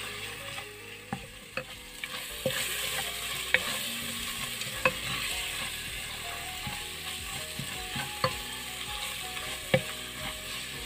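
Wooden spatula stirring and scraping onion-tomato masala in a metal pot, with a steady sizzle of the masala frying on low heat. Sharp taps of the spatula against the pot come every second or so.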